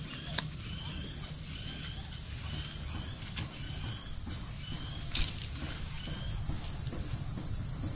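Steady high-pitched insect drone, with a short faint chirp repeating about twice a second over it for a few seconds.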